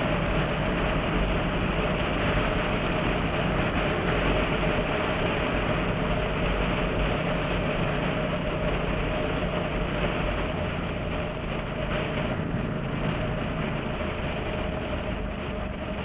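Yamaha MT-07's 689 cc parallel-twin engine breathing through an aftermarket Jeskap GP carbon exhaust, running steadily at highway cruising speed with a steady rush of wind. In the last few seconds it eases off and grows quieter as the bike slows.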